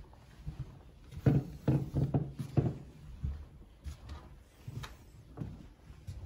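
Soft footsteps and handling knocks from someone walking along an indoor hallway, loudest in a cluster between about one and three seconds in, then quieter, spaced steps.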